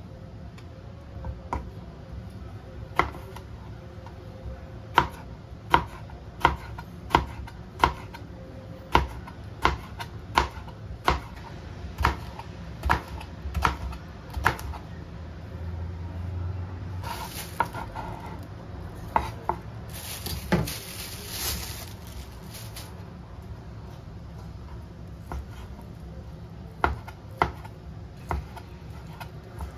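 Kitchen knife slicing purple eggplant into rounds, each stroke ending in a sharp knock on a plastic cutting board, roughly one cut every 0.7 s. Midway there are a couple of seconds of scraping noise, and near the end a few more knife knocks as fried tofu is cut.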